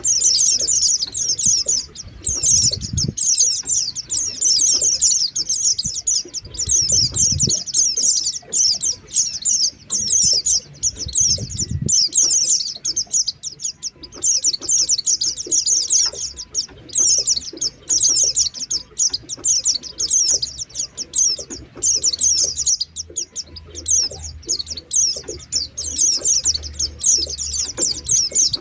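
White-eyes (pleci) twittering in a fast, continuous, high-pitched chatter of many overlapping notes: a lure call used to draw in wild white-eyes. A few brief low rumbles sound under the chatter.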